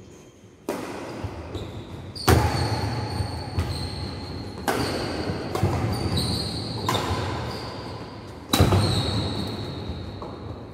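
Badminton rackets hitting a shuttlecock back and forth in a rally, a sharp crack every one to two seconds, about seven in all, with the loudest about two seconds in and near the end, each echoing through a large hall. Short high squeaks, from shoes on the wooden court, come between the hits.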